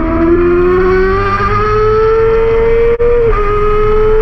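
Yamaha R6 inline-four sport bike engine at high revs under acceleration, its whine climbing steadily in pitch. About three seconds in there is a brief break and the pitch dips, as on an upshift, then it climbs again.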